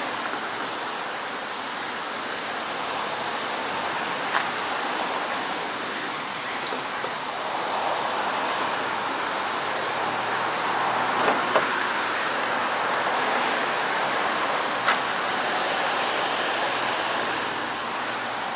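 Steady hiss of street traffic, with a few short sharp clicks or knocks scattered through it.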